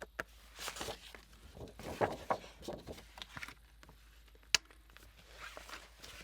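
Hands handling paper and packing materials on a work table: rustling and light knocks, with one sharp click about four and a half seconds in.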